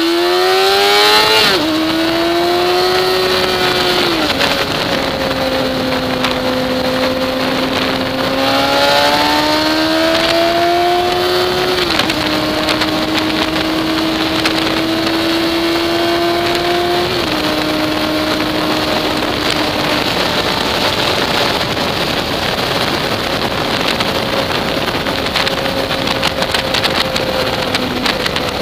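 Sport motorcycle engine heard from the rider's seat, accelerating hard. Its note climbs and drops at gear changes about a second and a half in, near twelve seconds and again near seventeen, then holds fairly steady at speed. Loud wind noise rushes over the microphone, growing near the end.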